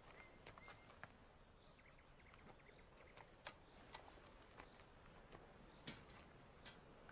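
Near silence: faint night ambience with a high insect chirp repeating at an even pace, and a few soft clicks of footsteps, the loudest click near the end as a metal gate is handled.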